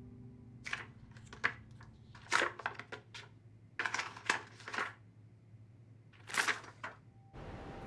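Paper photo prints being pulled off a wall, the paper crinkling and rustling in about five short bursts. Near the end the sound cuts to a steady outdoor hiss.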